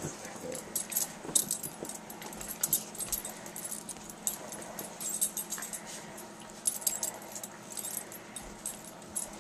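A large dog and a puppy play-wrestling: scuffling and irregular short high jingles and clicks, with occasional small dog whimpers.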